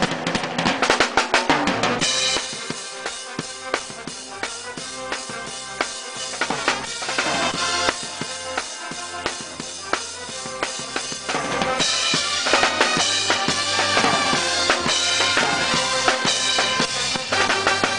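Percussion music: drums playing a steady rhythm with pitched instruments sounding over them, dropping back about two seconds in and building up again past the middle.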